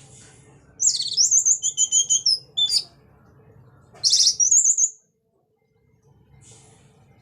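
Orange-headed thrush (anis merah) singing two loud phrases of quick, warbling high notes, the first about a second in and the second about four seconds in.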